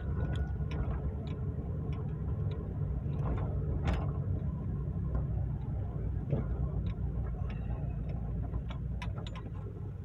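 Car driving slowly over a rough dirt road, heard inside the cabin: a steady low engine and road rumble with frequent small clicks and rattles.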